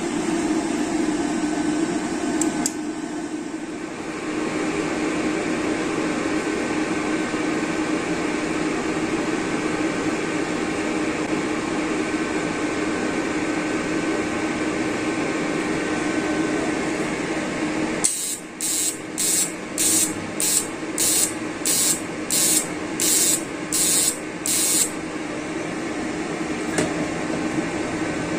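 Caldwell TIG 250 GP inverter welder switched on and idling, its cooling fan giving a steady hum with a faint tone. About 18 seconds in, a run of about a dozen short hisses, roughly two a second, starts and stops some seven seconds later.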